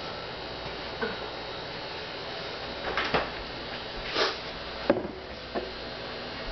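Kitchen handling noise: four short knocks and scrapes, about three, four, five and five and a half seconds in, over a steady background hiss.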